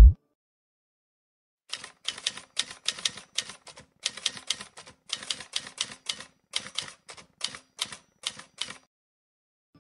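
Typewriter keys clacking in a quick, uneven run of strokes, starting after a short silence and stopping shortly before the end: a typing sound effect.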